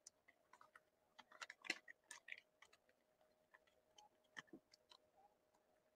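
Faint crinkles and clicks of a plastic comic-book bag being handled, busiest between about one and a half and two and a half seconds in, over a faint steady hum.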